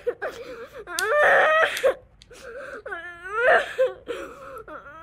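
A child crying in loud, repeated wailing sobs, several long cries with sliding pitch.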